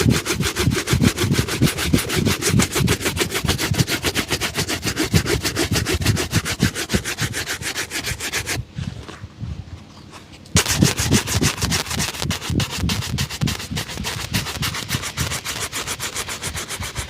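A leather shoe being buffed during a shoe shine, in rapid, even back-and-forth strokes of several a second. The buffing pauses about eight and a half seconds in and resumes about two seconds later.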